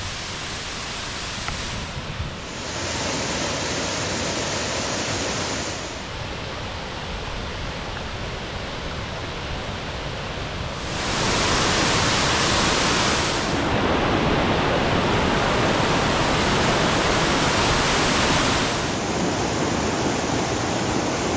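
Waterfall rushing: a steady hiss of falling water that steps louder and quieter a few times, loudest from about eleven to eighteen seconds in.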